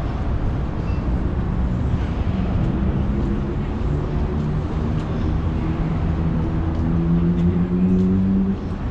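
Steady city traffic noise, with a vehicle's low hum that comes in about two seconds in, holds a few steady pitches and stops shortly before the end.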